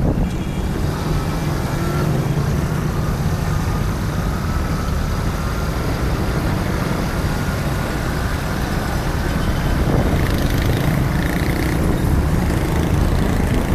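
Steady road traffic noise, vehicle engines running, with a heavy low rumble throughout.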